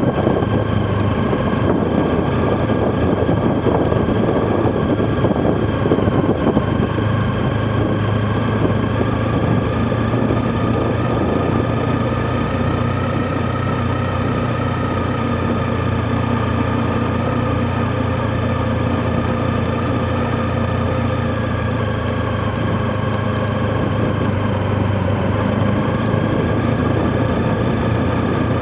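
Motorcycle engine running steadily at low speed, pulling uphill in a low gear, heard from a camera mounted on the bike, with rough road noise from riding over cobblestones.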